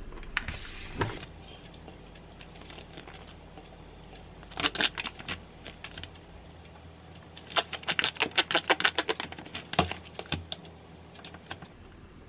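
Wooden spoon scraping and tapping in a plastic meal tray while scooping fried rice onto a ceramic plate, heard as two clusters of quick clicks, about four seconds in and again from about seven to ten seconds. A brief plastic rustle near the start.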